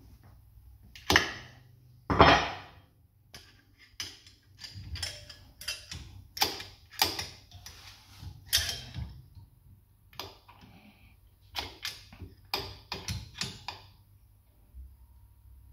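Sharp metallic clicks and knocks from hand work on a Steyr-Puch engine's valve gear: the original Puch bending tool levered on a cam follower, and the camshaft turned by hand against the followers to check that they sit flat. The two loudest knocks come about one and two seconds in, followed by irregular runs of clicks.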